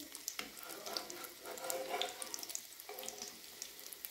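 Egg-coated shami kebabs (chicken-and-lentil patties) shallow-frying in hot oil in a flat pan: a steady sizzle with scattered crackling pops, while a metal spatula is worked under the patties to turn them.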